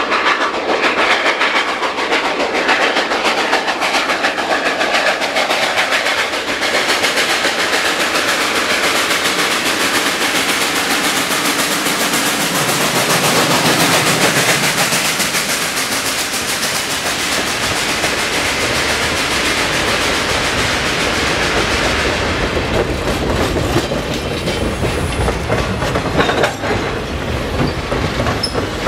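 Steam-hauled train of hopper cars coming out of a tunnel and passing close by with a loud, continuous rush of noise. In the second half a deeper rumble joins in as the cars roll past on the rails.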